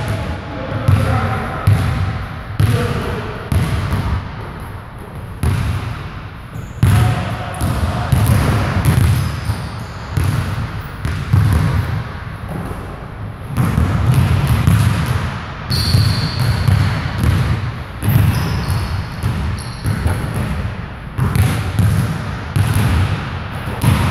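Basketballs bouncing on a hardwood gym floor as several players dribble and shoot: repeated, irregularly spaced thuds that echo in the large gymnasium.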